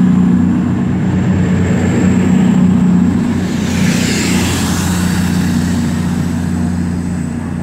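Class 220 Voyager diesel-electric multiple unit pulling away under power, its underfloor diesel engines giving a steady low drone. A rush of noise swells as the last car passes close about four seconds in, then the sound slowly fades.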